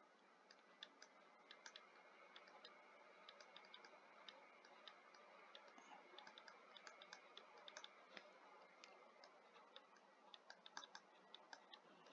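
Near silence with faint, irregular small clicks and taps, several a second, from handwriting being put into a computer whiteboard, over a light hiss.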